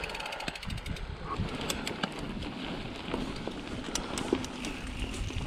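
Mountain bike riding on a dirt trail: tyre noise, scattered clicks and rattles from the bike, and wind buffeting the microphone. A rapid, even ticking is heard briefly at the start.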